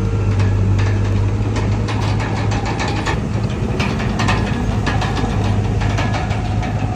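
Komatsu D31PX bulldozer's diesel engine running steadily with a deep hum, with many short metallic knocks and clanks throughout.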